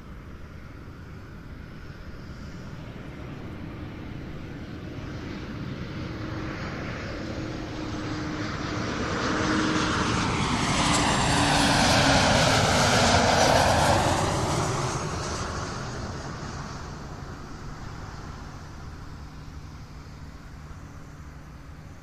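An airliner flying overhead: its engine noise swells to a loud peak a little past the middle, then fades away. A tone in the sound drops in pitch as the plane passes.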